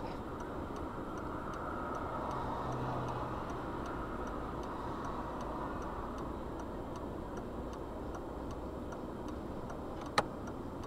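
Steady hum inside a stopped car with its engine idling, with a faint, regular ticking about twice a second. A single sharp click about ten seconds in.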